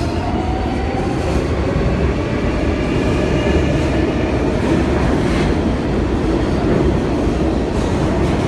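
R142A subway train approaching through the tunnel into the station: a loud, steady rumble of wheels on rail, with faint whining tones during the first few seconds.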